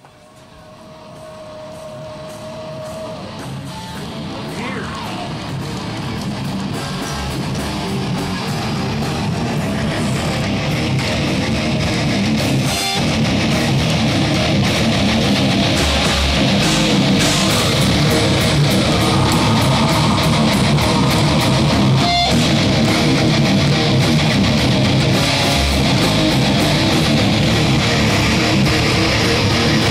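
Heavy metal band playing with electric guitars. It fades in from quiet over about the first ten seconds, then plays steadily at full level.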